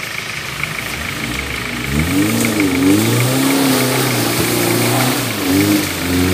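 Suzuki Jimny 4x4's engine revving under load as it pulls through mud; the revs climb about two seconds in, then rise and fall.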